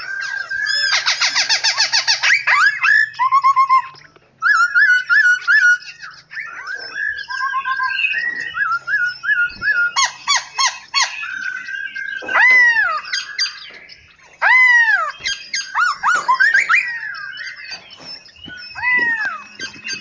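Several caged songbirds calling and singing together: a very fast rattling trill about a second in, runs of quick whistled notes, then loud arching chirps repeated from about halfway through.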